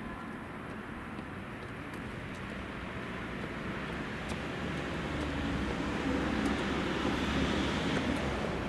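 Tobu 9000 series electric train approaching: a steady rumble of running gear on the rails that grows louder over several seconds.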